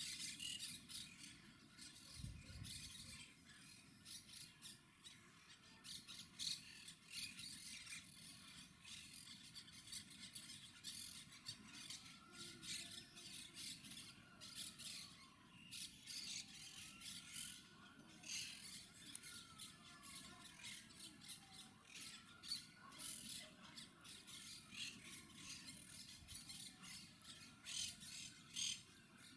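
Monk parakeets (Quaker parrots) squawking and chattering faintly: scattered short, harsh calls, with a few gliding calls in the middle stretch.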